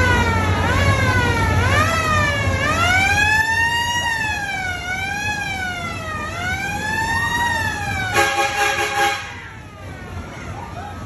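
A siren wailing up and down, first in quick sweeps and then in slower, longer rises and falls. It is followed about eight seconds in by a steady horn blast lasting about a second.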